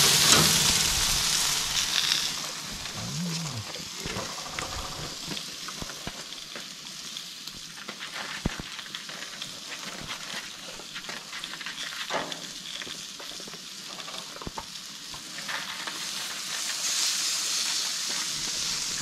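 T-bone steaks sizzling on a gas grill's grate: loud at first, then quieter with a few sharp clicks of metal tongs, swelling again near the end as a steak is lifted off the grate.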